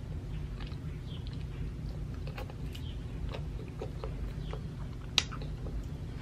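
A child eating saucy noodles close to the microphone: she sucks in noodles and chews, with scattered wet mouth clicks and smacks and one sharp, louder click about five seconds in, over a steady low hum.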